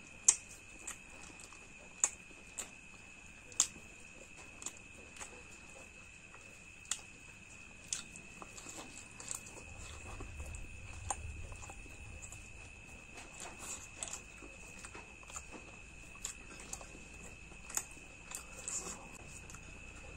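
A person eating close to the microphone: chewing, with irregular sharp mouth clicks and smacks, one or two a second, over a faint steady high whine.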